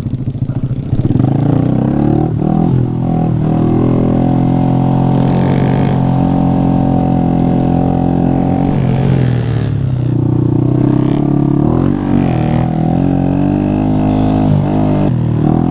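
Honda Grom's 125 cc single-cylinder four-stroke engine running under steady throttle on a trail ride, its note dipping and climbing back a few times as the throttle or gear changes.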